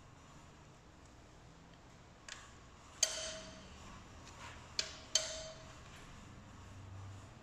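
Sharp metal clinks of a long-handled wrench and socket on the cylinder-head bolts: four short clicks, the two loudest, about three and five seconds in, each followed by a brief ringing tone.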